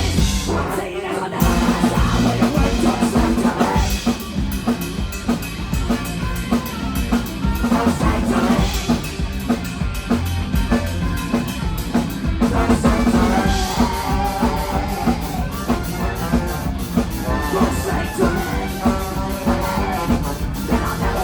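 Live ska band playing loudly with drum kit, bass and guitars, with a brief break just after the start before the full band comes back in.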